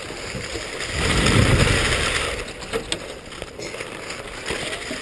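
Skis sliding and scraping over packed snow, with a louder hiss for about a second and a half, starting about a second in, then a quieter glide with a few light clicks.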